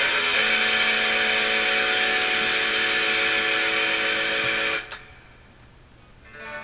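Electric guitar through a Marshall 5210 solid-state amp: a chord is strummed and left ringing, then cut off abruptly just before five seconds in with a click. After a short quieter gap, softer single notes start near the end.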